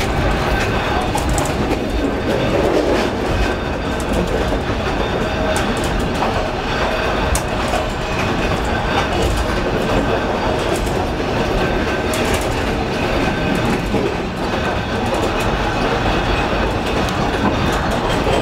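Burmese passenger train running along the track, heard from inside the carriage: a loud, steady rumbling rattle with frequent irregular sharp clicks and knocks.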